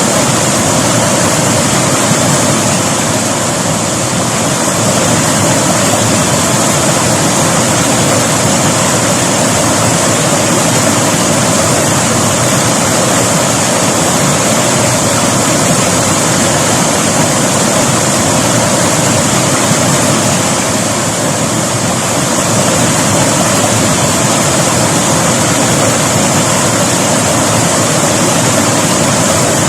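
River water flowing and rushing, a loud, steady wash of noise that barely changes.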